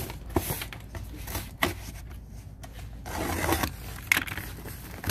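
Box cutter slicing through packing tape on a cardboard box, with cardboard scraping and a few sharp taps as the box is handled.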